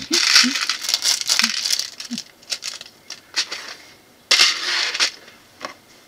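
Plastic parts bags crinkling and small plastic building bricks clicking in clear plastic tubs as they are sorted by hand. The rustling fills the first two seconds, a few faint clicks follow, and a second burst of rustling comes about four seconds in.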